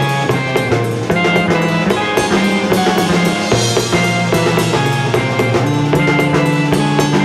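Live progressive rock band playing an instrumental passage: a busy drum kit with rapid cymbal and snare hits over held bass notes that step in pitch, with sustained keyboard tones above.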